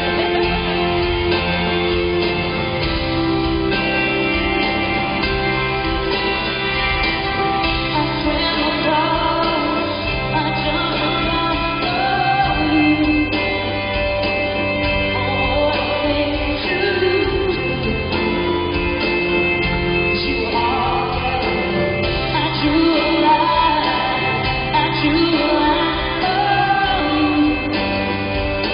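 A female singer performing a pop song live with band accompaniment, her voice carrying the melody over steady bass and guitar.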